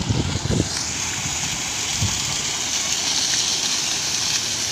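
Fountain water jets splashing and gushing into the pool in a steady rush that grows fuller about a second in.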